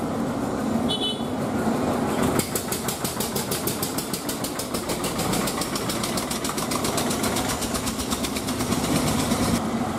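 Potter's wheel spinning at speed, a steady mechanical running noise; from a couple of seconds in, a fast even ticking runs over it and stops abruptly near the end.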